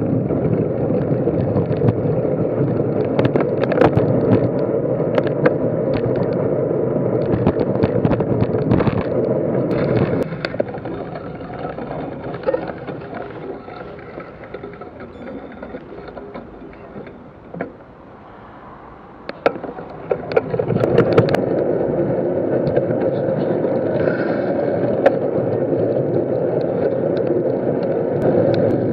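Wind rushing over the microphone of a camera riding on a moving bicycle, with the rattle and sharp knocks of the bike going over the road surface. The noise eases off from about ten seconds in and returns strongly about twenty-one seconds in.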